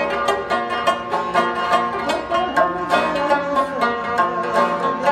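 Rabab, the Pashtun plucked lute, played solo: a fast picked melody of rapid notes over a steady ringing drone.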